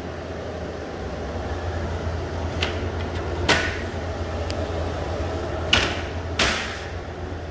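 Window air conditioner, freshly cleaned and serviced, running with a steady hum and working normally. A few sharp knocks sound over it, the loudest about three and a half and six seconds in.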